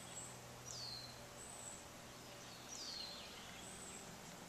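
A bird calling outdoors: two short high whistles about two seconds apart, each sliding down in pitch, with a few fainter high chirps between, over a faint steady low hum.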